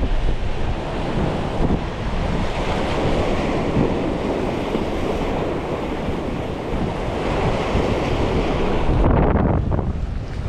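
Ocean surf washing against jetty rocks, with strong wind buffeting the microphone as a heavy low rumble.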